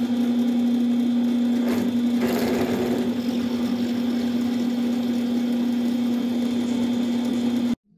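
Drill press running with its motor humming steadily while a drill bit opens up a quarter-inch hole in a steel disc to 5/16 inch. The sound cuts off suddenly near the end.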